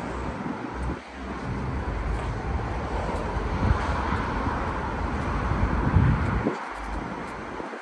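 Wind buffeting the microphone in an irregular low rumble that stops abruptly near the end, over steady city traffic noise that swells in the middle.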